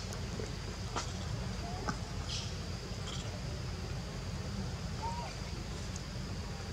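Outdoor forest ambience: a steady low rumble with a few faint clicks and short high chirps, and one brief arched call about five seconds in.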